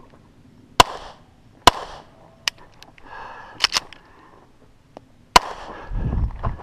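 Pistol shots fired close by, from the shooter's position: two single shots about a second apart, a fainter crack, a quick pair, then one more. A low rumble follows near the end.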